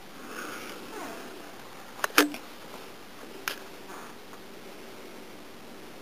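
Casablanca Lady Delta ceiling fan running on low with a nearly silent motor: only a faint, steady hiss of moving air and a low hum. A short sniff comes near the start, and a few sharp clicks come about two seconds in and once more a little later.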